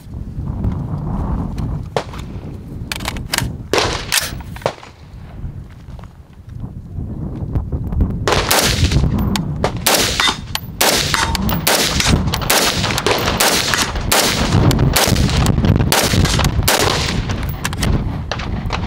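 Harrington & Richardson M16A1 5.56 mm rifle firing. A few scattered shots come first, then from about eight seconds in a steady string of shots, about two a second. A low wind rumble on the microphone runs underneath.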